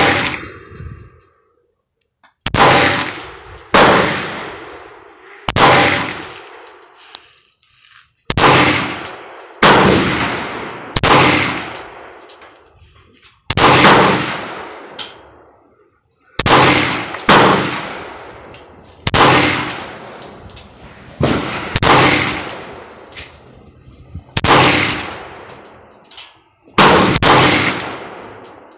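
A Glock 17 9mm pistol fired in slow single shots, roughly one every second or so, with about eighteen shots in all. Each crack is followed by a short ringing echo.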